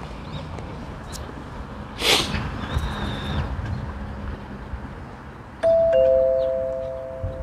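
A two-note ding-dong chime, a higher note struck and then a lower one, both held and fading slowly, about two seconds from the end. Earlier, about 2 s in, a short loud whoosh.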